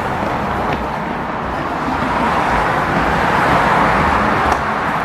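Melbourne suburban electric train running, a loud, steady rushing noise.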